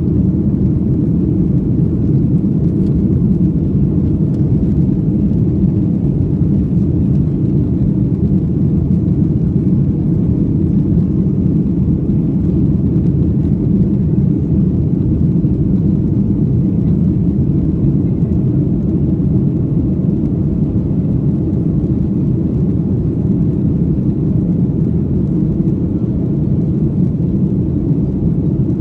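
Steady low cabin rumble of a Boeing 737-900 climbing after takeoff: its CFM56-7B engines and the airflow heard through the fuselage by the wing, unchanging throughout.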